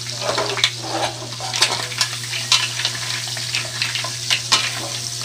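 Cooked mussels being stirred in a pan, the shells clicking and scraping against each other and the pan over a steady sizzle, with a steady low hum underneath.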